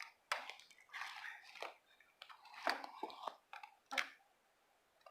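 Slime being squished and stretched by hand, giving a series of wet clicks and small air-bubble pops in irregular bursts.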